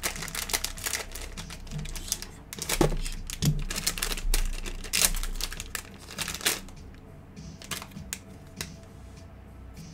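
Foil blind-bag wrapper crinkling and tearing as it is ripped open by hand to get at a mini NFL figurine. A dense run of crackles thins to a few scattered ones after about seven seconds.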